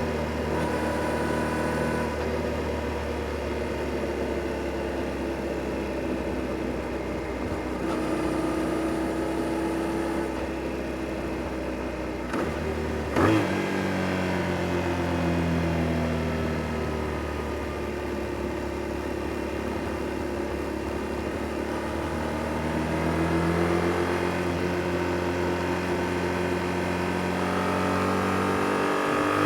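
Yamaha Tracer 7 GT's stock-exhausted 689 cc parallel-twin engine running on the move. A short sharp crack comes about halfway through. After it the engine note falls away slowly, then climbs again near the end as the bike accelerates.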